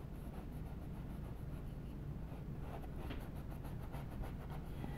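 Faint, soft scratching of a small paintbrush working acrylic glaze onto a canvas in short repeated strokes, over a steady low hum.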